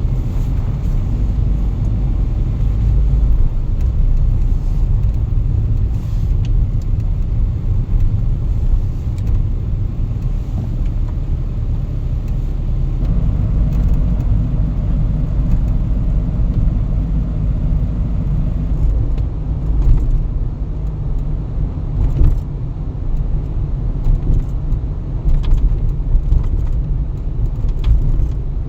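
A car being driven: a steady low engine and road rumble, its character shifting a little about halfway through.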